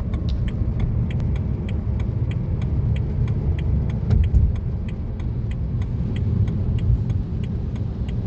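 Car interior road noise: a steady low rumble of the moving car, with a run of small light ticks a few times a second over it.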